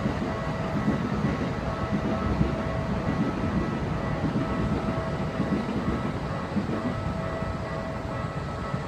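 Keikyu railway level-crossing warning alarm ringing steadily, its tones held over a continuous low rumble.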